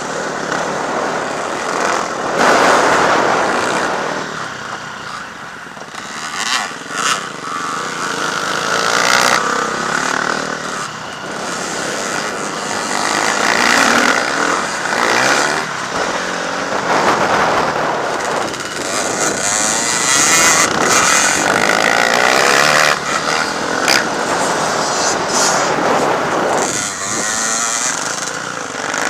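Off-road motocross bikes racing on a dirt track, their engines revving up and easing off. The sound swells and fades every few seconds as bikes come near and draw away.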